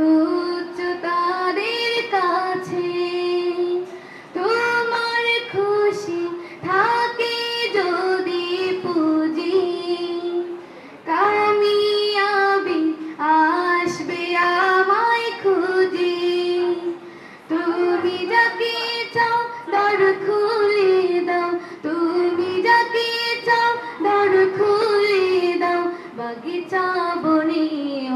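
A girl singing an Islamic ghazal solo, without accompaniment, into a microphone. She sings in long phrases of held, ornamented notes, with short pauses for breath between them.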